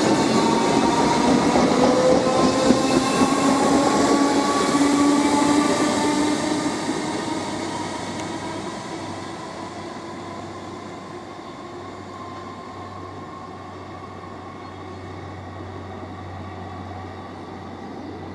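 Great Northern Class 313 electric multiple unit running away from the platform, its traction motors whining in several tones that rise slowly in pitch over the wheel and rail noise. After about six seconds the sound fades to a faint steady hum as the train recedes.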